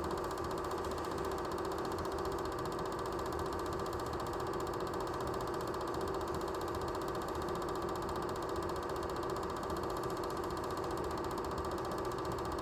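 Super 8 film projector running: a steady, rapid mechanical clatter over a constant hum.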